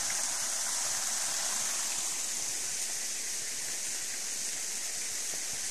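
Water from a natural spring running and splashing in a steady rushing hiss.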